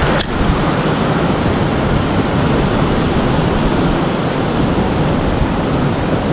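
Steady, loud rushing noise with a rumble underneath. A single sharp click comes about a quarter of a second in.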